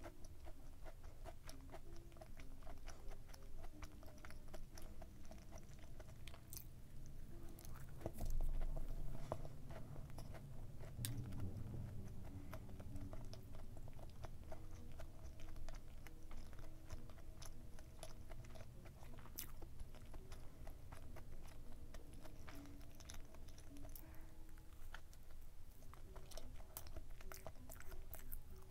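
Close-miked chewing of a dense, fudgy brownie muffin, with many small wet mouth clicks. A louder low sound swells up about eight seconds in and fades a few seconds later.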